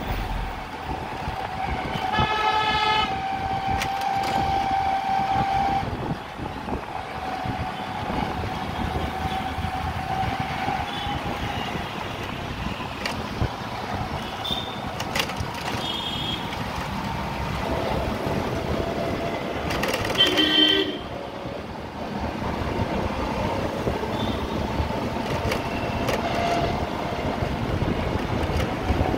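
Road noise of a vehicle driving through city traffic, with a steady whine that dips slightly in pitch as it slows. A vehicle horn honks briefly about two seconds in, and a louder horn blast comes about twenty seconds in.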